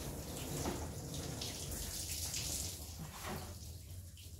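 Running water, a steady splashing hiss that fades out about three and a half seconds in.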